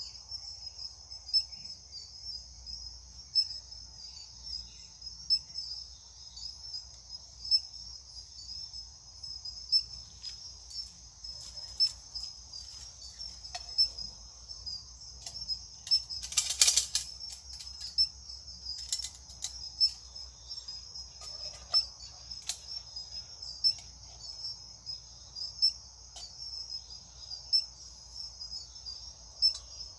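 Steady high-pitched chorus of crickets or similar insects, with a sharper pulse in it about every two seconds. A brief burst of noise cuts across it about halfway through.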